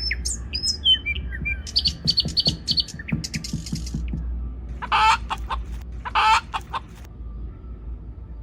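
Farmyard chickens clucking, with small birds chirping and whistling in the first couple of seconds. Two loud calls stand out about five and six seconds in. Then it goes quieter, with a faint steady tone.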